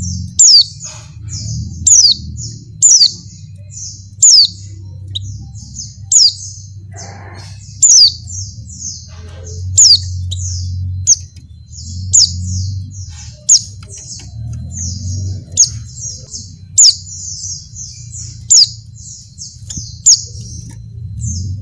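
White-eye (pleci) calling: loud, short, high chirps that sweep downward, about one every second, with quicker, softer twittering between them, over a steady low hum. It is presented as a female pleci in breeding condition calling to males.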